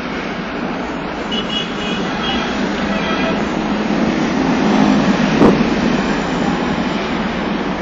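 Steady road and engine noise of a moving vehicle on a busy highway, heard from on board, with a single short knock about five and a half seconds in.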